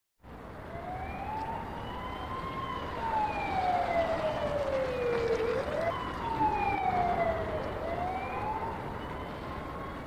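Police siren wailing in slow sweeps, its pitch rising and falling over a few seconds each way, with an abrupt jump back up about halfway through.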